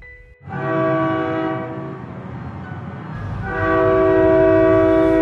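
Train horn sounding two blasts, a chord of several steady tones: one about a second and a half long starting about half a second in, then a longer, louder one from about three and a half seconds that is still sounding at the end. The low rumble of the moving train runs beneath.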